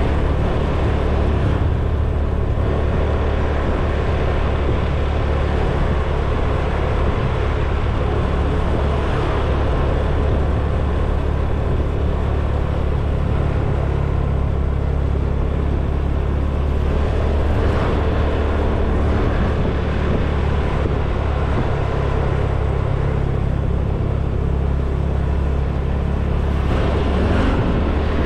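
Motor scooter engine running steadily while being ridden, a continuous low hum under road and wind noise, with a few brief louder swells of hiss along the way.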